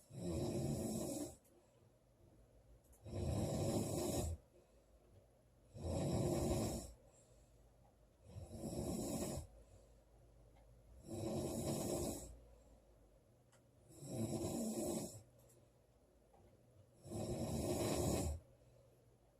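A woman snoring loudly: seven snores, each about a second long, one roughly every three seconds.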